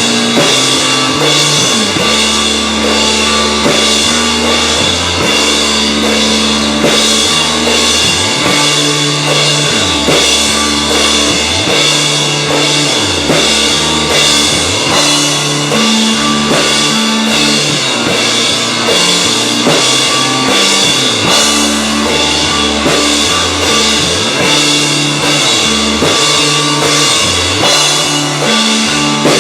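Rock band playing live: a full drum kit with steady cymbals, bass guitar moving between sustained low notes, and electric guitar, all loud.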